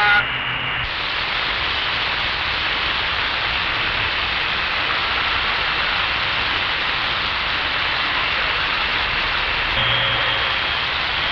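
CB radio receiver hiss: steady static from an open, unused channel. Near the end a faint steady tone and low hum come in.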